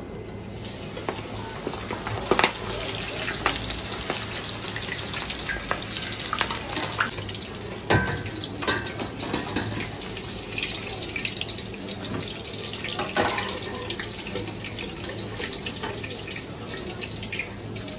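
Coated shrimp deep-frying in a pot of hot oil: a steady dense sizzle and crackle. A metal spider skimmer clinks sharply against the pot a few times.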